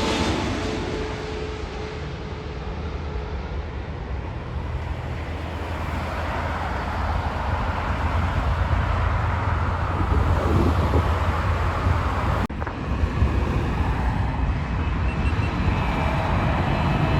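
Jet airliner engine noise: one aircraft's sound fades away over the first couple of seconds, then a steady rumble builds again, with a steady whine coming in near the end.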